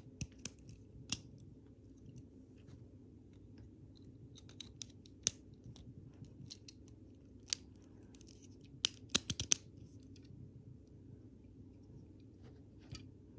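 Hard plastic Lego Technic pieces clicking and snapping as they are fitted together by hand, in scattered sharp clicks with a quick run of several about two-thirds of the way through, over a faint low hum.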